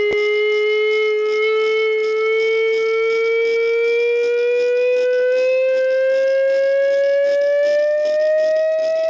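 A single loud sustained tone, rising slowly and evenly in pitch like a siren winding up, with a sharp click just after it begins.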